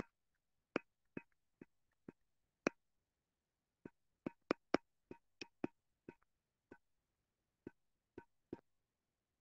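Faint, short clicks of a stylus tapping against a tablet screen while writing, about eighteen at an uneven pace.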